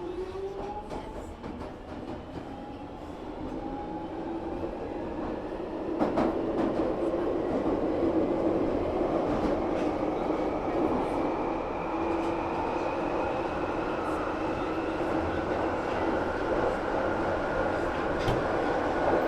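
Train approaching and passing, its rumble growing louder with a sudden jump in level about six seconds in, and faint high tones slowly rising in pitch above the noise.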